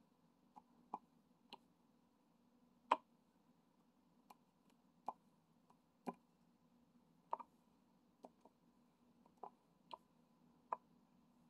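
Faint, irregular light clicks and taps, roughly one a second: a diamond painting drill pen dabbing up drills and pressing them one at a time onto the sticky canvas.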